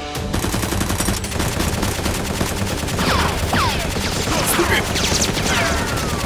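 Rapid, continuous automatic gunfire sound effects dubbed over a toy-blaster fight, with several falling whines from about three seconds in.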